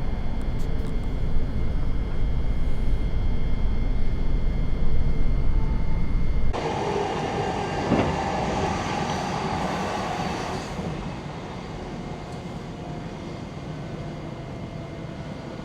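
Running noise heard from inside a Great Northern electric passenger train moving along the track: a steady low rumble with a faint steady whine. About six and a half seconds in the sound changes abruptly to a brighter hiss for about four seconds, then grows quieter as the train nears its next stop.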